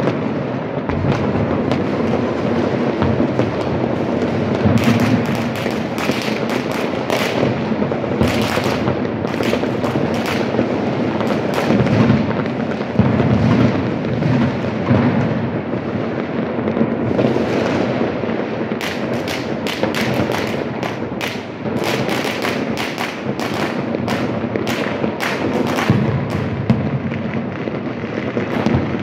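Fireworks and firecrackers going off all over a city at once: a continuous rumble of distant bangs, broken by many sharp cracks that come thickest near the middle and through the second half.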